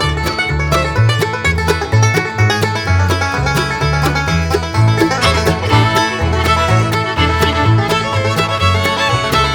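Upbeat background music with quick plucked-string notes over a steady, bouncing bass line.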